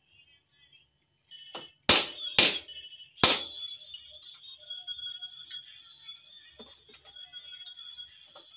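Hammer blows on a steel L-wrench used as a drift, driving a steering head bearing race into a Yamaha NMAX's head tube. There is one lighter tap and then three sharp, loud metal strikes within about two seconds, followed by a high metallic ring and a few lighter knocks.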